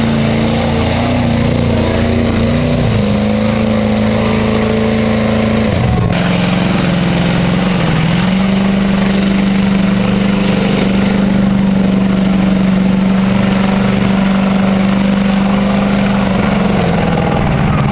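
Mud truck's engine held at high revs as it plows through a mud bog. The pitch dips briefly about six seconds in and again about two seconds later, then drops off near the end.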